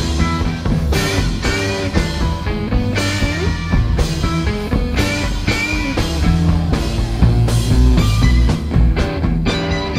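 Psychedelic rock band playing live through an instrumental passage, with guitar and a drum kit keeping a steady beat over a heavy low end. The band comes in louder right at the start.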